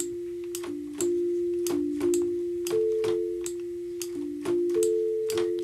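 Sytrus FM synthesizer playing a soft, flute-like patch: pure, whistle-like tones in the D4 to A4 range, a few notes overlapping and held as a simple melody. Short clicks come with the notes, about two a second.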